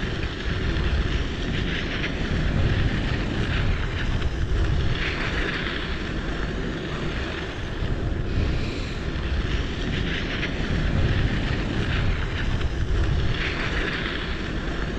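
Wind rushing over the microphone of a moving e-bike, a steady low rush with slow surges and no clear engine or motor tone.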